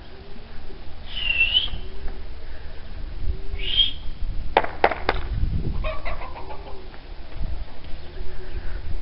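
Flock of fancy pigeons flying overhead, wings flapping, over a low rumble. Two short high bird calls about one and four seconds in, and a quick cluster of sharp clacks about five seconds in.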